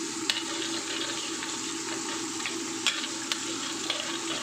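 Sliced shallots and garlic sizzling steadily in hot oil in a pan, with a few sharp clicks.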